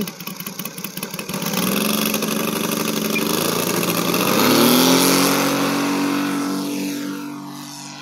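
Saito 60R3 three-cylinder radial model-aircraft engine throttling up from idle in two steps, about a second and a half in and again about four and a half seconds in, then held steady at high throttle, growing fainter near the end.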